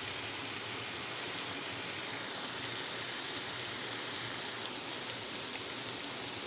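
Minced-meat keema sizzling steadily in its own oil in a wide pan, the frying stage after the water has cooked off.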